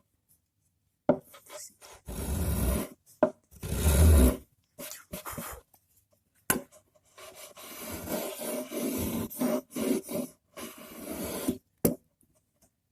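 Spokeshave shaving the edge of an MDF back panel. Two short scraping strokes come about two and four seconds in, then a longer run of strokes, with a few sharp knocks in between.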